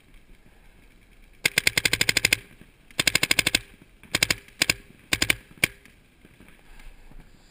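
A paintball marker fires close by in rapid strings of shots, about ten a second. The strings get shorter and end in a single shot as the marker runs out of paint.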